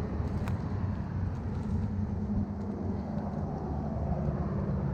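Road traffic: a motor vehicle engine running with a steady low hum.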